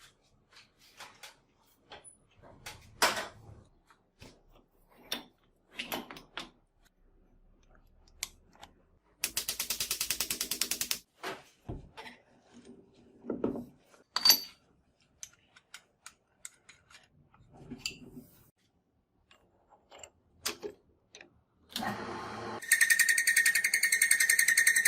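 Workshop metalworking sounds: scattered separate clicks and knocks of tools being handled, and a brief fast rattle. Near the end a power tool starts and runs steadily with a high, even whine.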